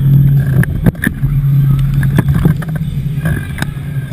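Mondial Shake ride running at speed: a steady low machine drone that dips briefly a couple of times, with many sharp knocks and rattles from the moving car.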